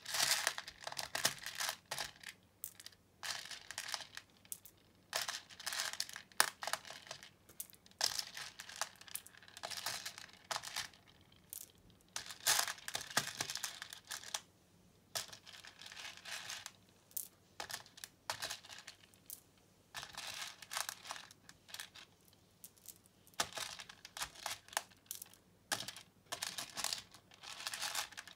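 Small plastic pony beads clattering and rattling as they are handled and sorted in a plastic tray, in bursts of many small clicks with short pauses between.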